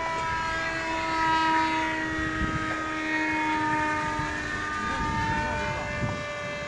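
Electric motor of a radio-controlled F-16 model jet flying past: a high whine made of several tones that slide a little lower as it goes by, loudest about a second and a half in.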